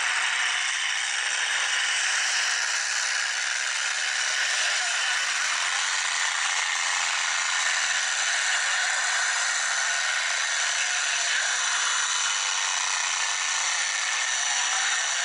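Steady, harsh racket of demolition derby pickup trucks' engines running and rattling as they drive around the arena, with no single crash standing out.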